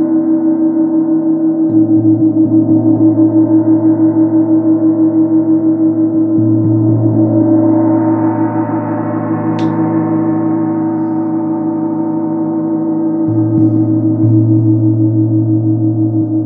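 A 24-inch chau gong (tam tam) tuned to A#2, played with a soft mallet, rings in a sustained, shimmering drone of many overtones with a quick pulse. Its low fundamental swells in and out several times, and the upper overtones bloom brighter about halfway through.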